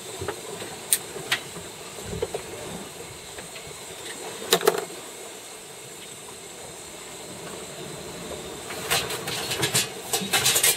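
A galley gas grill being lit and handled: scattered sharp clicks, one louder clack about halfway, then a quick run of clicks and clatter near the end, over a steady hiss.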